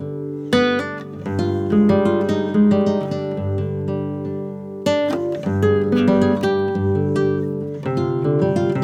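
Background music: acoustic guitar playing plucked and strummed chords, with a fresh strong strum about five seconds in.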